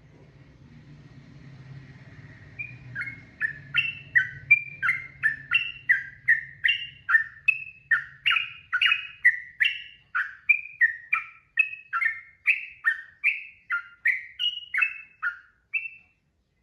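Yellow-vented bulbul (trucukan) singing a long, rapid run of short, falling whistled notes, about three a second, alternating higher and lower. It is the continuous 'ropel' singing used as training audio for cage birds. The song starts a few seconds in over a faint low hum and stops just before the end.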